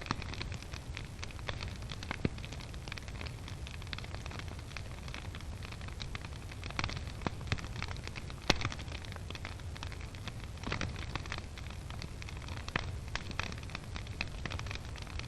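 Wood fire burning in the firebox of a brick fireplace-stove: irregular crackles and pops over a steady low rumble, with the sharpest pop about eight and a half seconds in.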